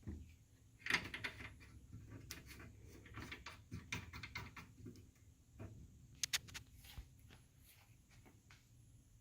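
A scattering of small clicks, taps and light scraping. There is a dull thump at the start and two sharp clicks a little past six seconds in.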